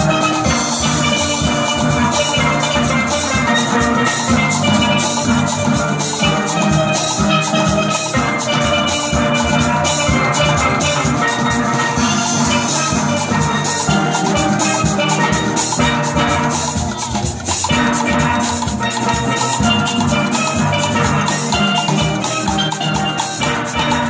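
Steel band playing: many steel pans struck with sticks, carrying a melody and chords over a steady drum beat.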